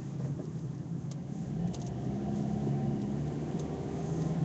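Car engine and road noise heard from inside the cabin while driving on a highway: a steady low hum over an even rumble.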